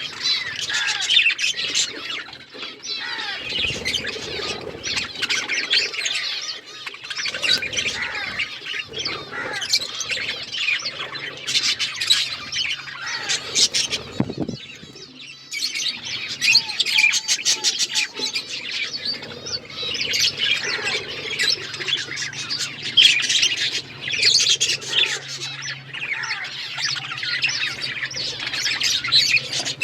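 A flock of budgerigars chirping and chattering continuously, many calls overlapping, with a brief lull about halfway through.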